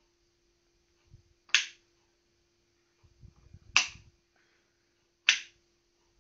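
Three sharp clicks of a plastic wall-plate light switch being flicked by hand, about two seconds apart, while the switch wiring on a small solar-battery control panel is tested.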